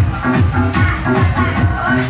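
Loud electronic dance music with a heavy bass kick about twice a second, played through a car sound system.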